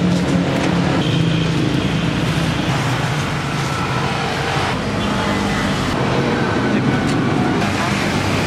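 Steady road traffic noise with a low engine hum, with people's voices mixed in.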